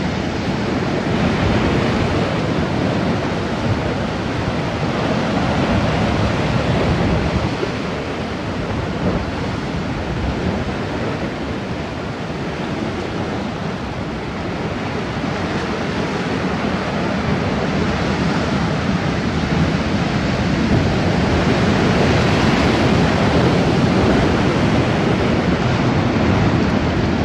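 Sea surf surging and washing into a narrow rocky gully, a steady rushing hiss that swells and eases every few seconds and is loudest in the last third.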